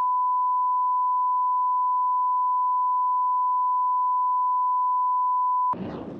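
Steady 1 kHz test tone accompanying colour bars, cutting off abruptly near the end, followed by a short burst of noise that fades away.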